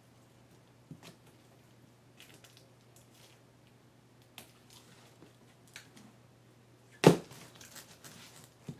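Packaging being handled while a 3D printer is unboxed: scattered soft rustles and light knocks, with one sharp, loud thump about seven seconds in.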